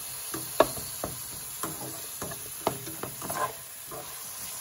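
A slotted spatula scraping and knocking against a metal frying pan as vegetables are stirred in hot oil, in irregular strokes about two a second. A faint steady sizzle of frying runs underneath.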